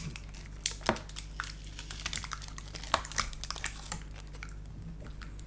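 Scattered light clicks and taps of small parts and tools being handled inside an open MacBook Pro during a battery swap, over a steady low hum.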